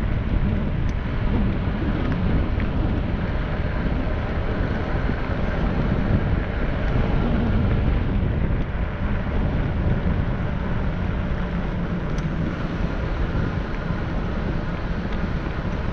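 Steady wind rush buffeting the microphone of a camera moving along a paved trail, a low rumbling noise with no distinct events.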